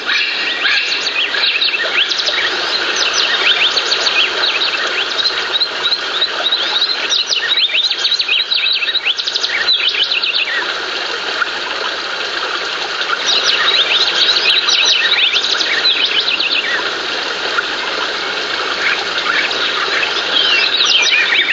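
A dense chorus of many birds chirping and calling, with rapid, overlapping short gliding chirps that thin out briefly near the middle and then fill in again.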